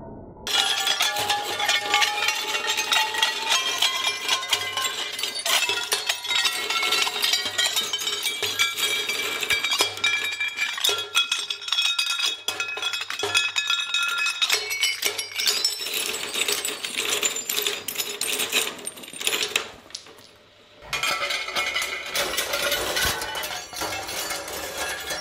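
Twin-shaft shredder breaking up white ceramic plates: continuous cracking and clinking of shards with bright ringing tones, over the machine's low hum. The sound drops away briefly about twenty seconds in, then the crunching and clinking resume.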